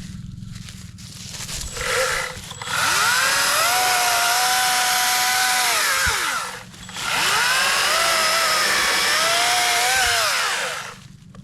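Atlas 40-volt brushless battery chainsaw: a brief trigger blip, then two long runs, each whining up to speed and winding down when released. In the second run the pitch wavers and sags, as under load in wood.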